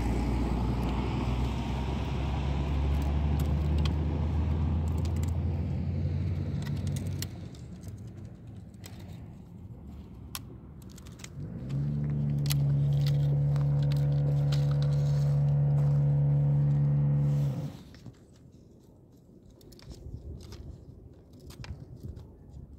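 A motor engine running close by, loud for the first seven seconds, fading, then returning as a steady engine note from about twelve seconds in that cuts off near eighteen. In the quieter stretches, small crackles and clicks of puppies gnawing a dry reed stalk.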